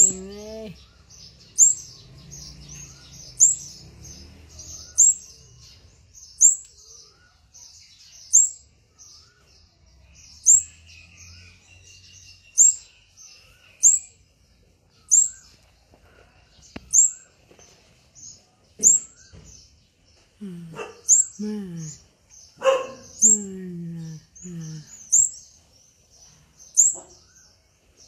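Yellow-bellied fledgling songbird calling from its perch: one sharp, high chirp repeated about every second and a half, the begging call of a young bird waiting for its parent to feed it. A few short, lower, falling calls from another source break in near the end.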